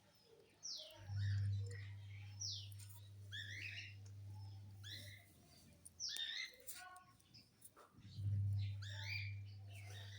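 Birds chirping, many short high calls falling in pitch, over a steady low hum that comes on about a second in, stops near the middle, and comes on again near the end.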